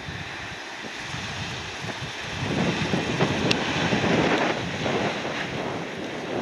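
Gusty wind buffeting the microphone over the jet engines of a Japan Airlines Boeing 787 landing in a strong crosswind. The rumble grows louder about two and a half seconds in.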